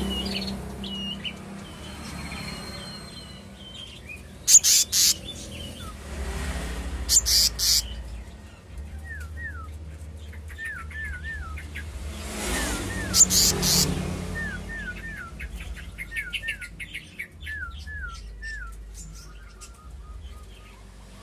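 Kehicap (monarch flycatcher) singing: short hooked whistles repeated in twos and threes, with higher chirps in the first few seconds. Several sharp clicks or knocks are loudest, at about 4, 7 and 13 seconds.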